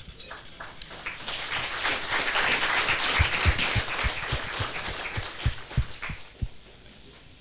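Audience applauding, the clapping swelling about a second in and dying away near the end, with a few heavier thumps among the claps.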